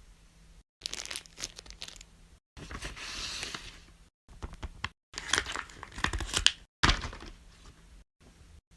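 Crinkling and crackling of plastic fidget toys being handled, in several short bursts with sharp clicks mixed in, broken by abrupt silent cuts.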